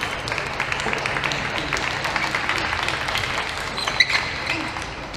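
Crowd applauding after a point, a dense patter of clapping, with one sharp click about four seconds in.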